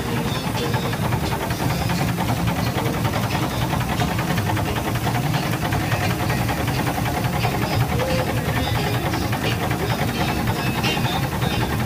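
Steamboat's steam engine running with a rapid, steady beat.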